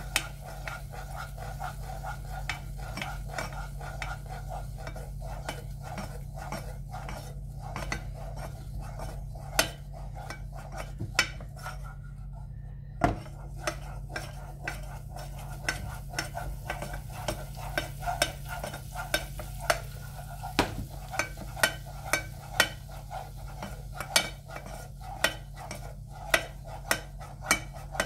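Wooden spoon stirring chopped onions frying in butter in a saucepan, knocking and scraping against the pan with frequent sharp, irregular clicks, over a faint sizzle. The clicks stop briefly about halfway through.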